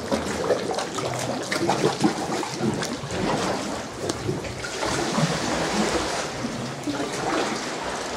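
Sea swell sloshing, gurgling and splashing against the rock inside a sea cave, belching and growling as it surges.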